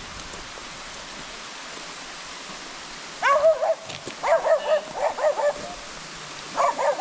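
Steady rush of the Nideck waterfall, then from about three seconds in a small dog barks in quick high yapping bursts, several in a row.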